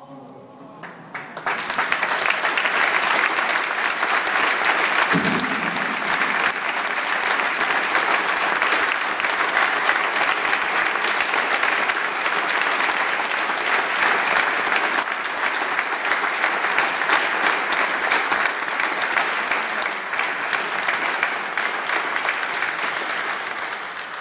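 Audience applauding steadily. The clapping swells up over the first couple of seconds and dies away near the end.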